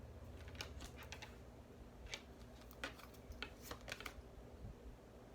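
Tarot cards being handled and laid down on a table: faint, irregular light clicks and taps, about a dozen scattered through the few seconds.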